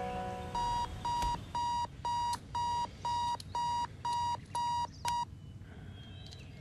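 Electronic alarm clock beeping, about ten identical high beeps at roughly two a second, stopping about five seconds in.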